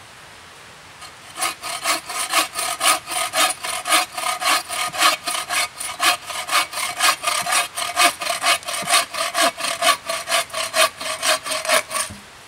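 Bow saw with a metal frame cutting through a dead log in quick, even back-and-forth strokes, several a second. The strokes start about a second and a half in and stop just before the end.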